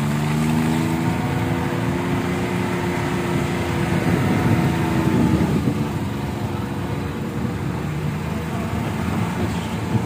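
An engine running steadily, its pitch drifting slowly and swelling a little about four to five seconds in.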